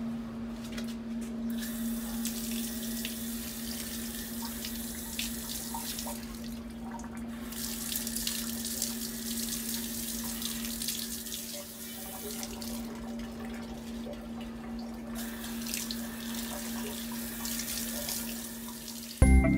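Water jet from a spray wand rinsing softened concrete buildup off a glass lens, the hiss of the spray coming in three long spells with short pauses. A steady low hum runs underneath, and music starts at the very end.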